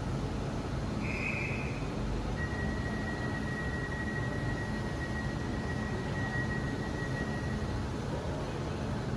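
Train running with a steady low rumble, and a high, steady squeal that starts a couple of seconds in and holds for about five seconds, after a brief higher squeal about a second in.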